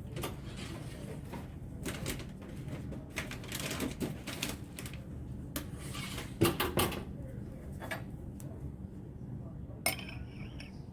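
Scattered clicks and clatter of dishes and utensils being handled, with a cluster of louder knocks a little past halfway.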